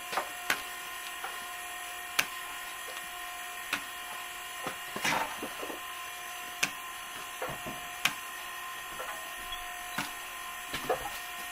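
Steady electric machine hum of several pitches in a tire workshop, with sharp clicks and knocks of tools and parts every second or so.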